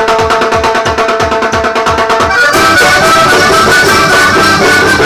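Live vallenato band led by a button accordion: the accordion holds a chord over a steady bass pulse, then breaks into a fast run of changing notes about two and a half seconds in.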